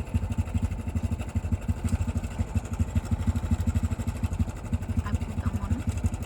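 A small engine running steadily at idle, a rapid, even low thumping of about eight beats a second.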